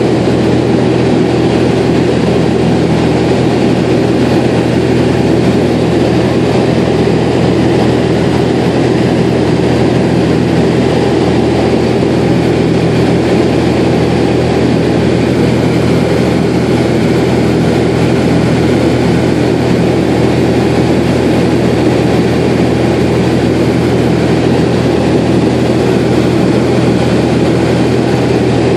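Light aircraft's propeller engine droning steadily in cruise flight, heard from inside the aircraft, a constant low hum with a rushing hiss over it.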